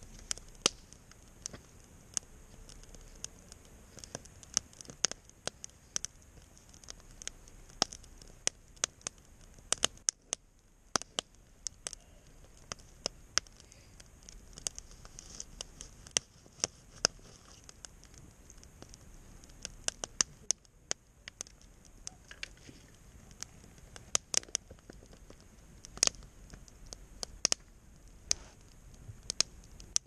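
Wood campfire crackling, with irregular sharp pops and snaps scattered through.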